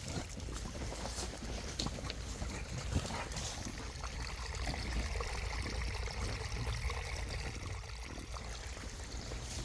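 Rainwater run-off trickling and flowing downhill, a steady rush of water dotted with many small splashes.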